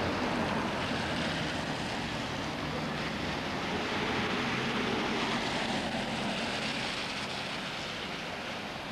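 Steady engine and road noise heard from inside a moving car, with a low steady hum under it.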